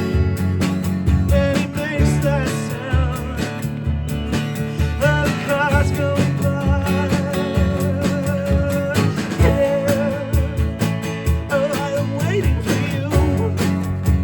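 A small band rehearsing a song, with guitar and a singing voice. A long wavering note is held for several seconds in the middle.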